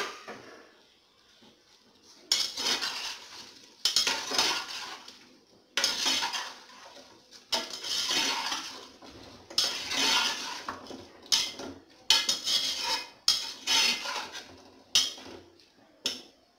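Metal spatula scraping and clanking against the inside of a pressure cooker while stirring chicken pieces in masala, in a run of strokes about one every second and a half.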